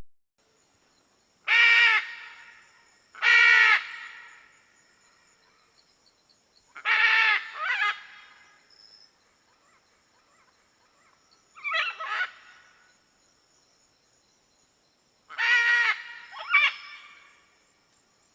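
Macaws giving loud, harsh squawks, one or two at a time, spaced a few seconds apart.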